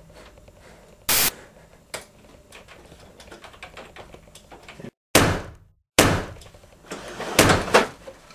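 Computer keyboard typing, a run of light quick key clicks, broken by several loud sharp thumps about a second in, around five and six seconds, and twice near the end. The sound drops out completely for two short moments in the middle.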